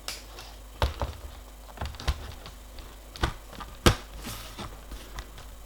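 Hands handling a laptop's replacement LCD screen and plastic lid: about eight light clicks and taps at uneven intervals, the loudest near four seconds in.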